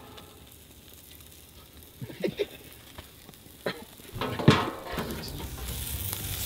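Albacore tuna pieces sizzling on a grill, with a few sharp knocks along the way, the loudest about four and a half seconds in. The sizzling grows louder in the last second or two.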